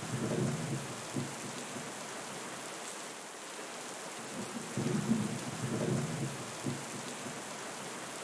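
Steady rain falling, with thunder rumbling low: one roll at the start lasting about a second, and another from about five seconds in lasting about two seconds.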